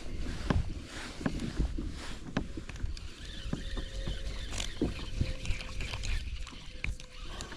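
Wind buffeting the microphone on a fishing kayak, with water slapping and knocking against the plastic hull in short, irregular knocks. A faint steady hum comes in about three seconds in.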